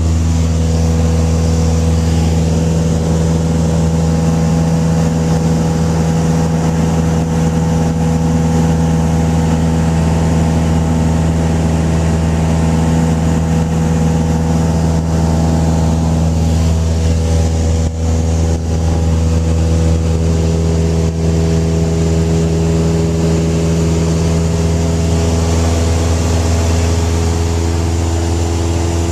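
Piston engine and propeller of a single-engine high-wing light aircraft droning steadily in cruise, heard from inside the cabin. The pitch shifts slightly near the end.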